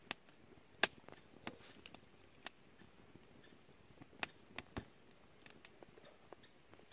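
Wood fire crackling: irregular sharp pops and snaps from the burning logs, a dozen or so scattered through a faint hiss.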